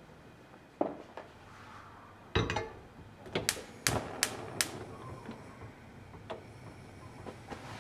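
A knock, then a gas hob's spark igniter clicking about five times in quick succession over a second as the burner under a saucepan is lit.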